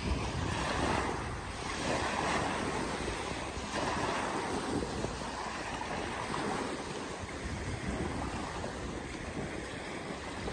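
Small sea waves breaking and washing up a pebble beach, the surf swelling every couple of seconds, with wind rumbling on the microphone.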